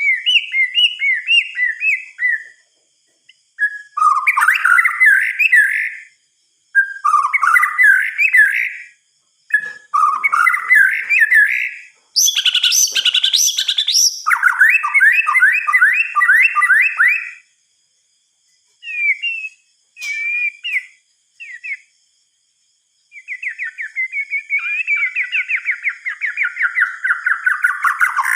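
White-rumped shama (murai batu) singing: loud, varied phrases of quick whistled notes lasting a few seconds each, separated by short pauses, with a long run of rapid repeated notes near the end.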